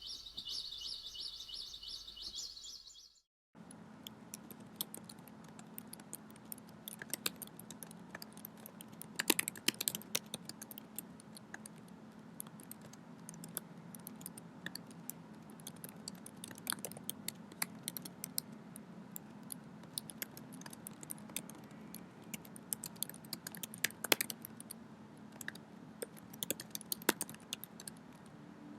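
A brief high-pitched pulsing chirp-like sound for about three seconds, then a short gap. After that, computer keyboard typing: irregular key clicks, a few louder strikes among them, over a steady low hum.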